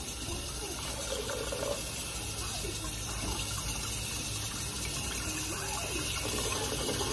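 Kitchen faucet running in a steady stream into a stainless-steel sink, the water splashing over raw pork chops rinsed by hand under it.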